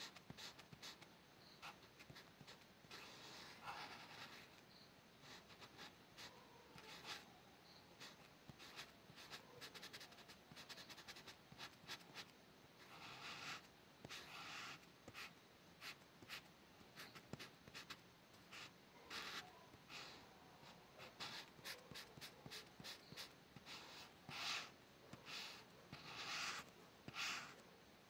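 Pen tip scratching across paper in many quick, short drawing strokes, with a few longer strokes near the middle and near the end.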